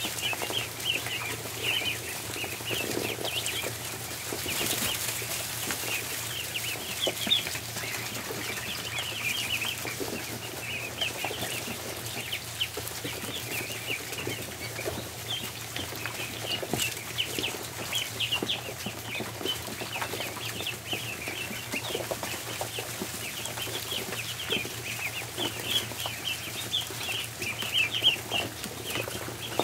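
A crowd of ducklings peeping without pause, many short high peeps overlapping, over a steady low hum.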